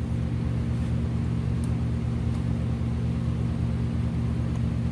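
Steady low mechanical hum with a constant drone from a machine running in the background, unchanging throughout, with a couple of faint light ticks.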